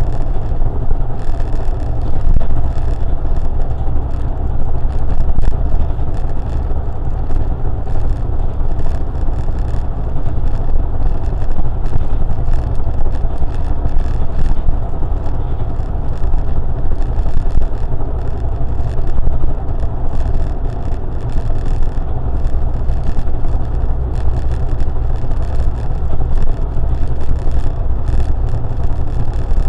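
A car driving along at steady speed: a constant low rumble of engine and road noise with no sharp events.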